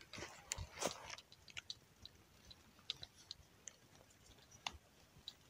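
Faint, scattered small clicks and ticks of a spinning reel and rod being handled during a cast with a float rig.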